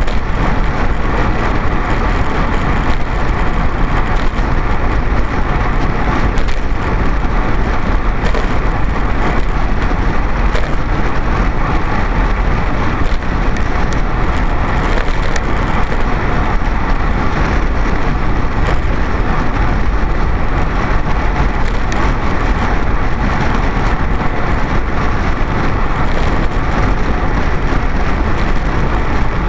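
Steady wind rush on the microphone of a camera riding along on a racing bicycle at speed, mixed with tyre and road noise and a few faint knocks.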